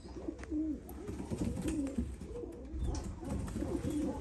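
Caged fancy pigeons cooing, low calls that rise and fall repeatedly.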